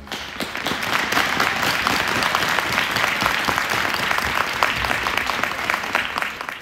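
Audience applauding, the clapping breaking out as the skating music stops.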